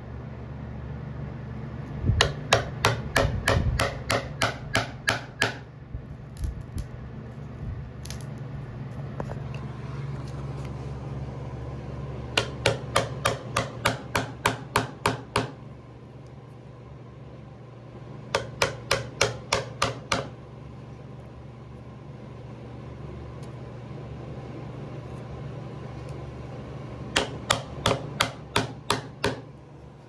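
Steel chisel bar chipping into a sawn pine board in four quick runs of sharp strikes, about three a second, digging out a piece of metal that the sawmill blade hit.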